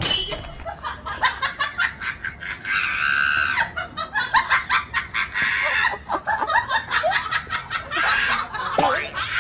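A group of young men laughing hard, in rapid, high-pitched bursts of laughter.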